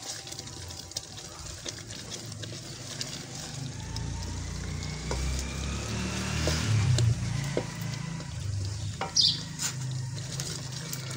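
Wooden spatula stirring and scraping thick halwa in an aluminium pan, the mixture sizzling softly on a low flame. A low rumble sets in about four seconds in.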